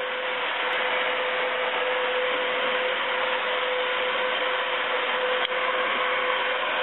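Upright vacuum cleaner running steadily on carpet, a constant motor whir with one held tone through it.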